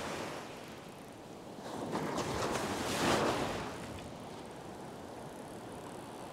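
Small surf waves breaking and washing up a sandy beach. One wash swells to its loudest about three seconds in, then fades.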